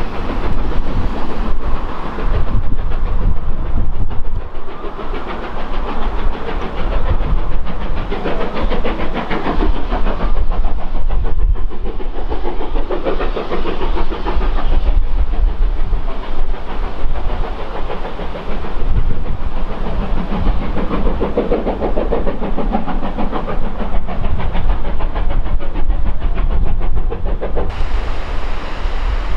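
Steam-hauled train running along the track, its wheels and coaches rumbling steadily.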